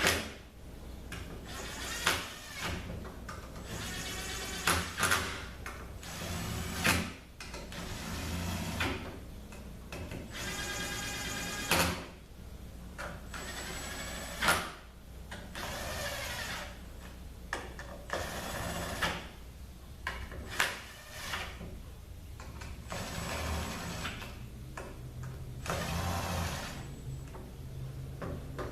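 Valve-body bolts being run in with a small power driver: repeated short bursts of whirring, with sharp clicks and taps of metal parts between them.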